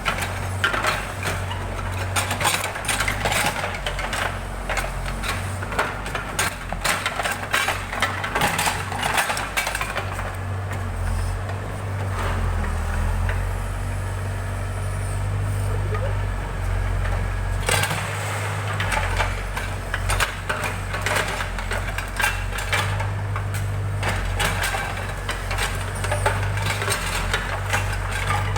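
Backhoe loader's diesel engine running steadily, with frequent sharp clattering knocks from the working machine. The knocking lets up for several seconds in the middle, leaving the engine alone, then returns.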